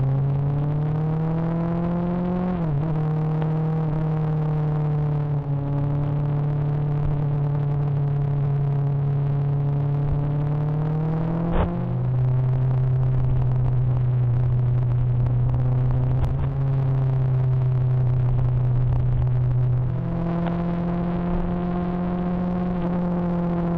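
Motorcycle engine running under way, heard from a camera mounted on the bike. Its steady pitch climbs slowly under throttle and shifts abruptly a few times.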